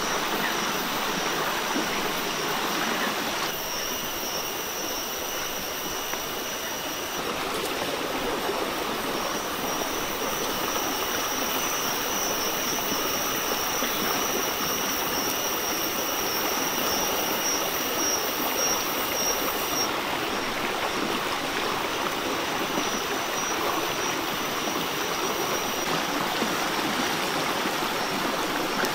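Shallow rocky stream running steadily, an even rush of water. A thin, steady high tone sits over it from a few seconds in until about two-thirds of the way through.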